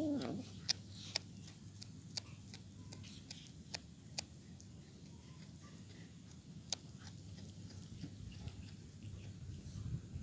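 Domestic cat chewing a mouse, with irregular sharp crunches of small bones, about one every second or two. It opens with a brief cat growl.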